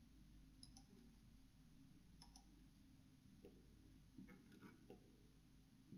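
Near silence with a few faint computer mouse clicks, scattered, most of them in the second half.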